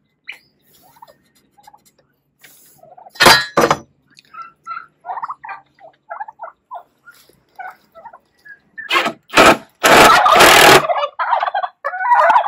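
A flock of domestic turkeys gobbling and calling, with many short calls through the middle and the loudest gobbling near the end. Two sharp knocks come about three seconds in.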